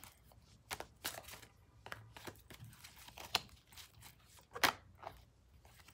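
Tarot deck being shuffled by hand: soft, irregular flicks and snaps of cards, the sharpest about four and a half seconds in.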